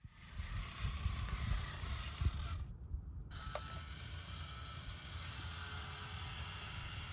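Small electric motor and plastic gearbox of a radio-controlled construction vehicle running, a faint mechanical whirring and clicking over a low rumble, with a brief dropout about three seconds in.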